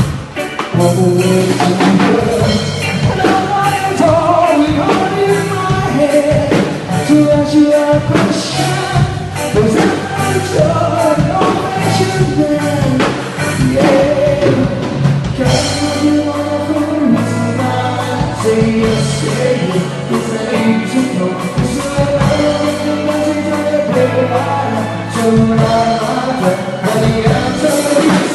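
Band music with a singer over a steady drum beat and bass.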